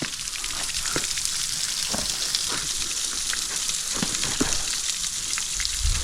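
Waterfall water falling close by and splashing the rappeller: a steady hiss with scattered sharp drop hits.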